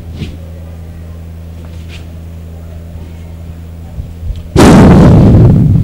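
Steady low electrical hum, then about four and a half seconds in a sudden, very loud noisy blast that holds for about a second and fades away.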